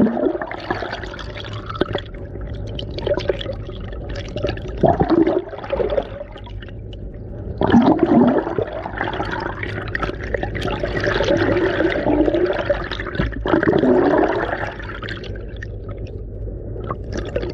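Underwater churning and gurgling of air bubbles as a swimmer plunges into the sea, heard through an underwater camera, coming in several louder surges.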